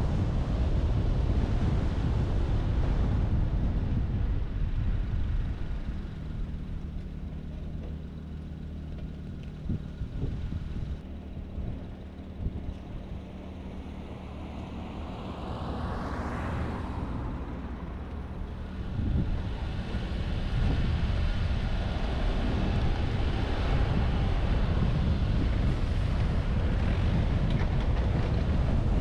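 Wind and road noise from a car driving a mountain road, rushing over the camera's microphone. It eases off for a while in the middle, leaving a steady low hum with a brief swell about halfway through, then the rush builds back up.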